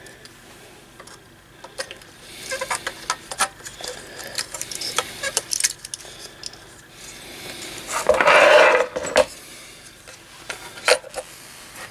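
Light clicks and clatter of a radio's circuit board and metal chassis being handled as the board is worked loose, with a louder scrape about eight seconds in.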